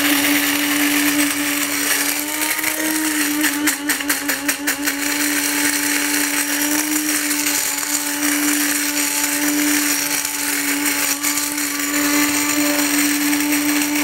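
Moulinex electric blade coffee grinder's motor running steadily at one pitch with its button held down, the blade grinding leftover bits of coffee beans to a fine powder. A short patch of rattling about four seconds in.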